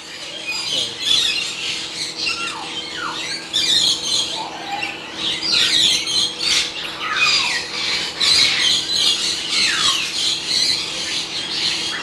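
Several sun conures screeching, with many shrill, mostly falling calls overlapping one another.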